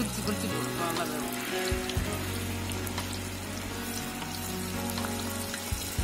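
Masala-coated cauliflower pieces deep-frying in a wok of hot oil, sizzling steadily, as more coated pieces are dropped into the oil.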